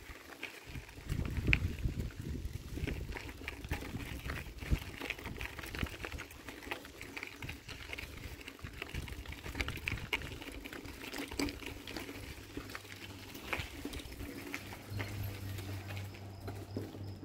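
Bicycle tyres rolling over a dirt and gravel trail: a continuous crunching crackle of small stones with a low rumble underneath. A steady low hum comes in near the end.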